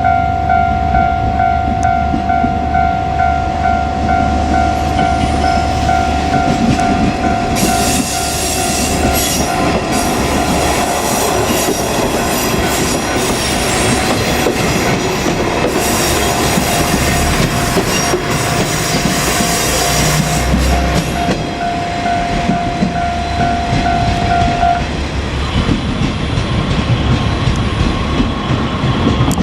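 Japanese level crossing warning bell sounding steadily while a two-car KiHa 47 diesel railcar set runs over the crossing, its diesel engines running and wheels clattering loudest for about thirteen seconds in the middle. The bell stops about 25 seconds in as the train moves off.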